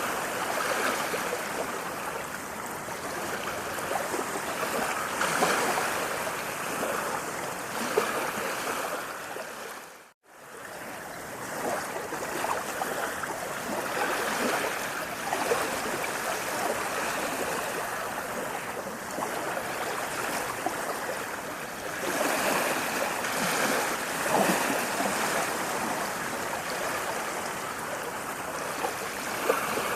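Running water rushing steadily, swelling and easing a little, with a brief drop to near silence about ten seconds in before it comes back.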